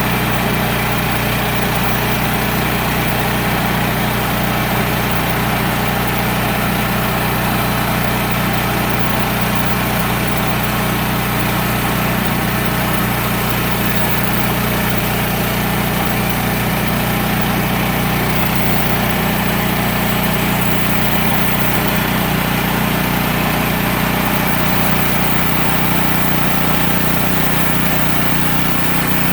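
Portable sawmill's engine running steadily.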